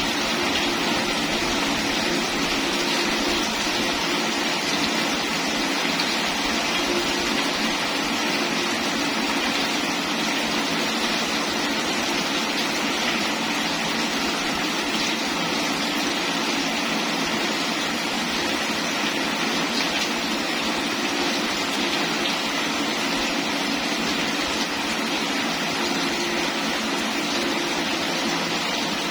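Steady heavy rain, an even hiss that stays at the same level without breaks.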